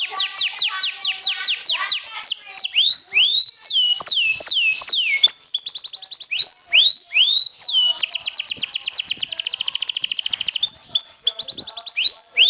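Canary singing a loud, fast song of trills and whistled sweeping notes: a rapid trill at the start, then a string of notes that swoop down and up, then a long, very rapid trill from about eight to ten and a half seconds in.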